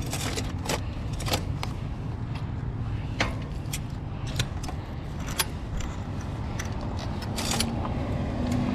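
Irregular sharp clicks and light metallic rattles from a Schwinn mountain bike being handled, its pedal, crank and chain moved by hand, over a steady low noise.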